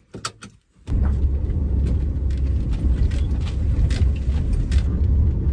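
A few light clicks, then about a second in a steady low rumble begins: a camper van's engine and road noise heard from inside the cab while driving, with small scattered rattles.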